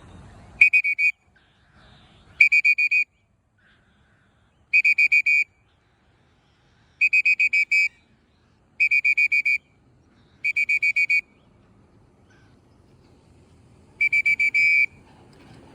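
A whistle blown in seven short trilling blasts, each a quick flutter of pulses on one steady high pitch, spaced a second or two apart with a longer gap near the end.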